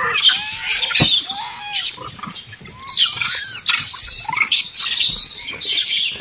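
A big troop of rhesus macaques squealing and chattering while they jostle and squabble over maize cobs, many short high-pitched calls overlapping, with a brief lull about two seconds in.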